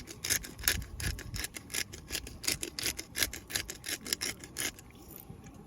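A rapid run of short rasping strokes, about five a second, that stops near the end.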